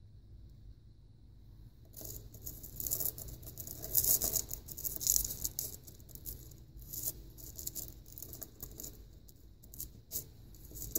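Broken pieces of a labradorite stone clicking and scraping against each other and the surface as they are handled and fitted back together, in small irregular clicks starting about two seconds in.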